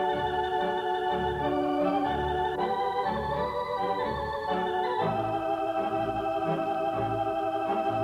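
Organ music: sustained chords over a regular pulsing bass, the chord changing about five seconds in.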